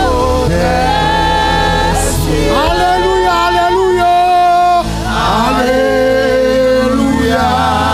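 Gospel worship music: singers holding long, wavering notes in phrases of a second or two over steady instrumental backing.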